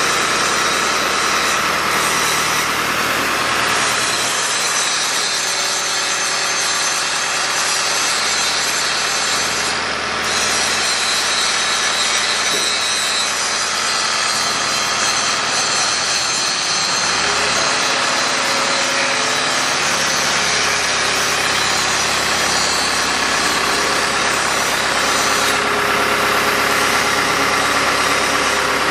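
Crane engine and hoist running steadily, with a rough even noise throughout and small shifts in pitch, while a single-rope grab bucket is hoisted out of a sand pile and lowered back into it.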